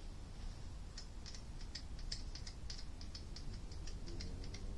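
A quick, irregular run of light metallic clicks and ticks, several a second, from hand work at the lathe while a line is marked on the workpiece for the parting cut, over a steady low hum.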